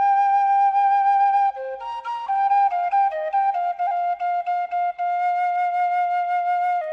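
Solo kaval, the end-blown shepherd's flute, playing a slow melody of long held notes that step up and down in pitch.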